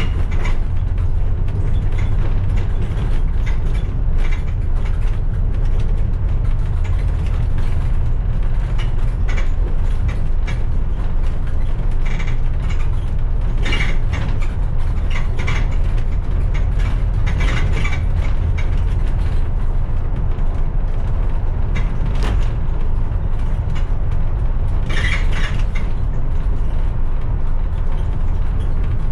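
A bus under way: a steady low drone of engine and road noise, with the body and fittings rattling and creaking. The rattles come in heavier spells a few times.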